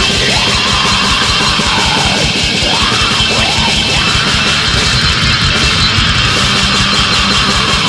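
Black metal demo recording: heavily distorted guitars over fast, dense drumming, loud and unbroken.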